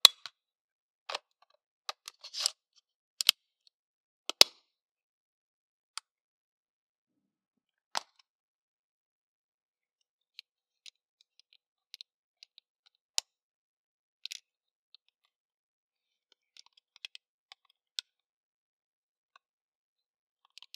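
Plastic clicks and snaps from handling a Fujifilm X-H2 camera and its accessories: covers and doors opened and small plastic parts fitted together. Irregular, a few seconds apart, with a short rustle about two seconds in and the loudest snaps in the first five seconds.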